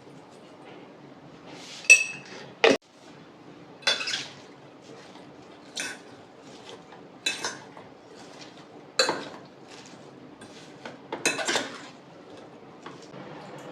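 Dishes and cutlery clinking: a string of separate clinks and knocks, about nine in all, the one about two seconds in ringing briefly like a struck cup or bowl.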